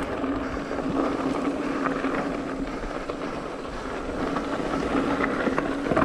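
Mountain bike rolling fast down a dry dirt-and-gravel trail: tyres crunching over loose stones, small rattles and clicks from the bike, and wind rushing over the camera microphone, with a steady buzz running through it.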